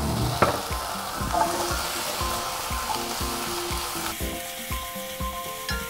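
Sliced onions and green peppers sizzling in a hot frying pan with chilli seasoning paste and mirin, stirred with a wooden spatula that knocks and scrapes against the pan.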